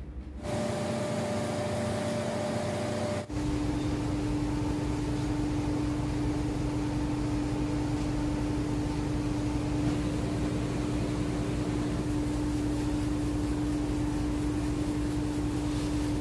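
Steady machine drone with a constant hum in it. About three seconds in there is an abrupt break, after which the hum carries on at a lower pitch.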